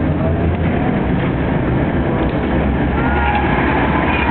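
Tram running along its rails, heard from inside the car: a steady rumble and low hum from the running gear and motors.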